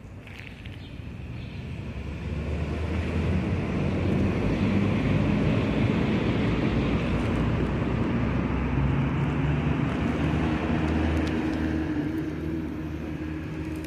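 Engine noise of a passing motor vehicle: a steady low hum and rumble that swells over the first few seconds, holds, and fades near the end.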